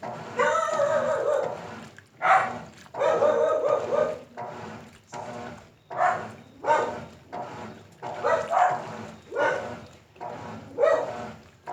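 A dog barking and yelping in short, irregular calls, one longer drawn-out call about half a second in, over a faint steady low hum.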